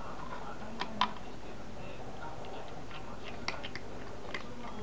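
A cat scraping dry kibble out of a plastic automatic-feeder bowl with its paw: scattered light clicks and taps of kibble and claws on the plastic, two about a second in and a few more in the second half.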